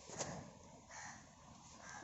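Faint bird calls over a quiet outdoor background, with one short click about a fifth of a second in.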